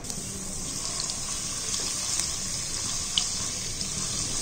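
Chopped ginger and garlic sizzling steadily in hot cooking oil in a karahi, with a single light tick about three seconds in.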